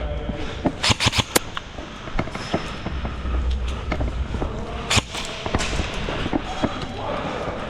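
Airsoft guns firing in sharp cracks: a quick string of four or five shots about a second in and a single loud shot near five seconds, among a scatter of smaller clicks and knocks.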